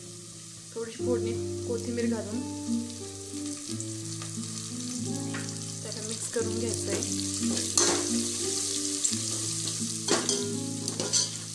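Onion, garlic, curry leaves and ground spices sizzling in hot oil in an aluminium pot, with a steel ladle stirring and scraping the pot from about a second in: the masala is being roasted before water goes in.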